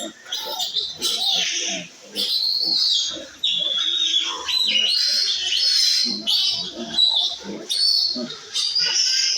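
A piglet squealing over and over in long, high-pitched screams, with lower grunting sounds between them: the distress cries of a piglet being castrated.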